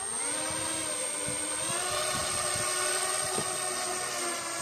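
The twin propellers of a radio-controlled wing-in-ground-effect craft model running up. Their buzz rises in pitch over about the first two seconds, then holds steady, with a thin high whine above it.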